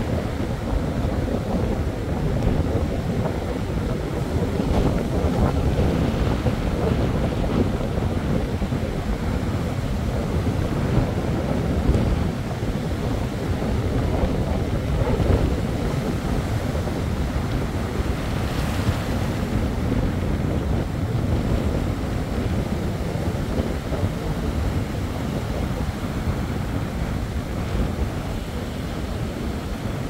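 Strong wind buffeting the microphone over the steady wash of rough surf breaking on the beach.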